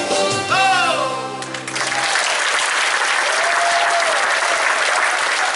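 Stage walk-on music ending with a falling glide about a second and a half in, then an audience applauding steadily.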